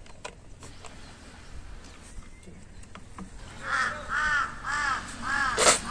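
A crow cawing: a run of about five short, harsh calls roughly half a second apart, starting a little past halfway, with a sharp knock near the end.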